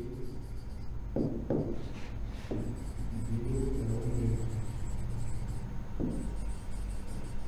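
A stylus writing on an interactive digital board: a few short taps and strokes as handwriting goes on, over a low steady hum.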